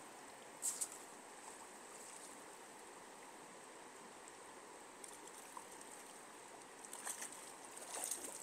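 Faint, steady rush of flowing stream water, with a few short clicks about a second in and again near the end.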